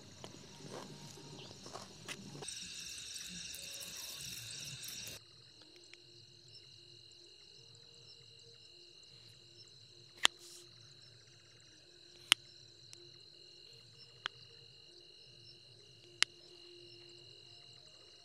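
Night insect chorus of crickets: a dense pulsing high chirr that cuts off suddenly about five seconds in, leaving a fainter steady high trill. Four sharp clicks, the loudest sounds here, come in the second half, spaced about two seconds apart.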